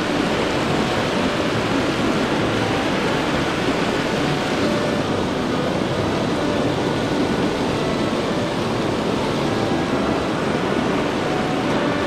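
Steady rush of a flowing mountain river, the Tama River running through its gorge.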